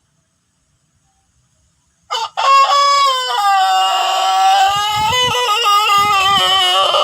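Pelung rooster crowing: one long, drawn-out crow that begins about two seconds in, its pitch stepping and wavering as it is held.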